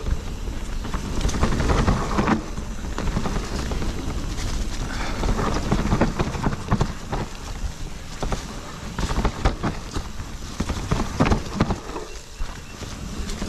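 Propain Ekano 2 CF e-mountain bike ridden over rough trail ground: a steady rumble of wind and tyres with many short knocks and rattles from the bike.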